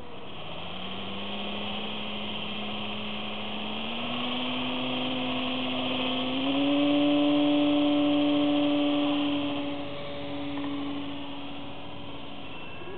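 Small motor and propeller of a styrofoam RC plane humming, its pitch stepping up several times as the throttle is opened and loudest from about six and a half seconds in. About ten seconds in it fades as the plane is hand-launched and flies off.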